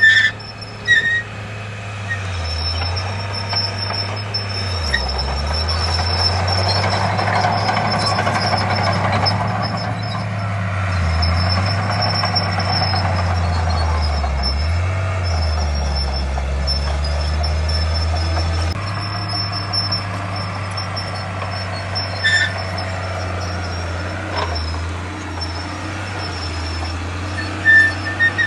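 Diesel engine of heavy earthmoving machinery running, its low drone dipping and recovering several times as it takes load, with a broader rush of noise swelling around a quarter of the way in and a few short high clicks.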